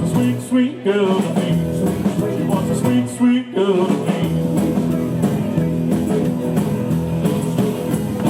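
Live rock and roll band playing, with electric guitar prominent over the rhythm section.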